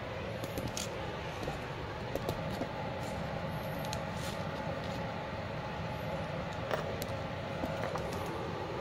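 Steady background hum and hiss, with a few faint light clicks.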